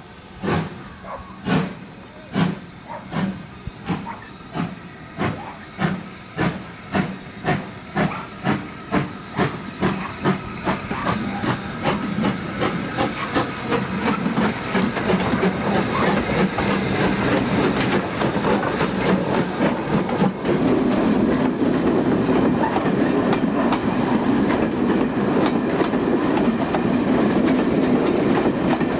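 Steam locomotive pulling away from a standstill. Its exhaust beats start at about one a second, then quicken and run together into a continuous chuffing. About two-thirds of the way in, a steady rumble takes over as the coaches roll past close by.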